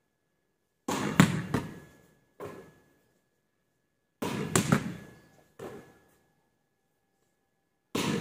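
A volleyball being struck overhand by hand and smacking off a wall and the paved ground, with echoes. The first cluster of sharp slaps comes about a second in and another about four seconds in, each followed about a second and a half later by a single softer bounce, and a third cluster starts near the end.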